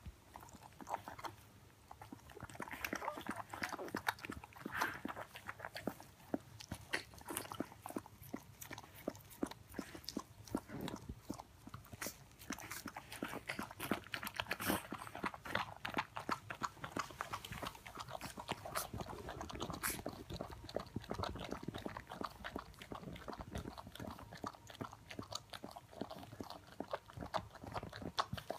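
Wet mouth sounds from a Siberian husky mother and her newborn puppy close to the microphone: a dense, irregular run of clicks, smacks and chewing.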